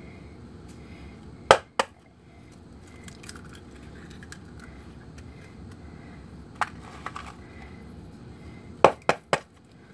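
Raw eggs being cracked, one at a time: two sharp taps on the shell about a second and a half in, then three quick taps near the end, with a few faint clicks in between.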